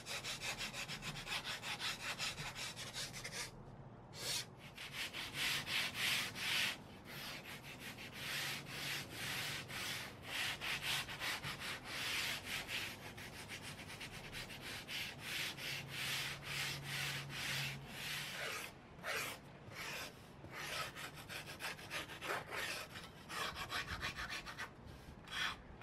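Hand file and sanding block rasping back and forth along the edge of a foam blank, shaving and smoothing a bevel: a run of scraping strokes, about two a second, with a few short pauses.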